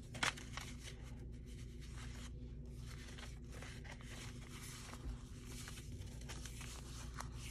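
Paper pages and pockets being handled and shuffled, rustling faintly and steadily, with a sharp paper snap just after the start.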